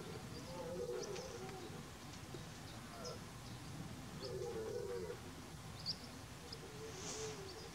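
Birds calling: a low, wavering cooing call heard twice, about three seconds apart, with faint short high chirps of small birds scattered through.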